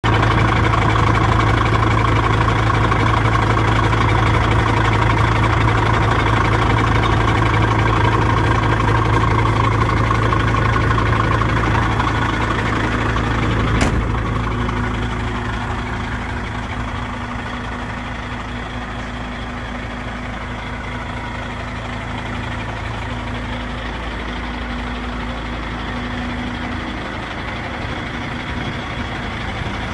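DAF XF 95.430 truck's 12.6-litre straight-six diesel idling steadily, heard close up in the engine compartment at first. A single sharp click about halfway through, after which the idle sounds somewhat quieter and more distant.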